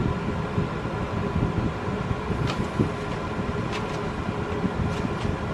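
10-litre compressor dehumidifier running, a steady fan rush with a constant hum underneath.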